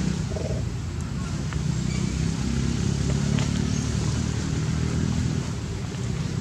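Steady low engine-like rumble, as from a motor running close by, with a few faint clicks over it.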